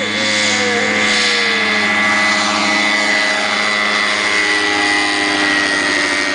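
DAR Solo ultralight's engine and propeller running at full power through take-off and a low pass overhead, a loud steady drone whose pitch sinks slightly in the second half as it goes by.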